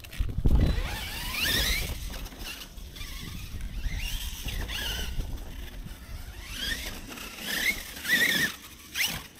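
Losi LMT Grave Digger 1/10 RC monster truck's electric motor whining, rising and falling in pitch with several throttle bursts, over the low rumble of the truck running on rough ground. The loudest moment is a low thump and rumble about half a second in.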